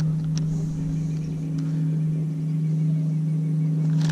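Steady electric hum from a small motor on the bass boat, holding one even pitch, with a couple of faint ticks near the start.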